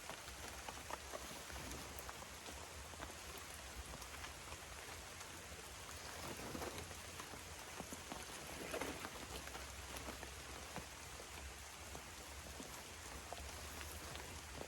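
Steady rain falling in the rainforest, an even hiss dotted with many small drop ticks, with two brief louder swells of noise about six and nine seconds in.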